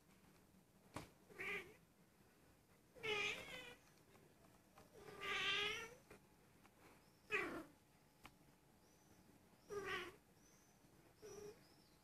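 Female Persian cat meowing repeatedly: six drawn-out calls of varying length, the longest about a second, some falling in pitch. The owner suspects this unusual calling means she is in heat.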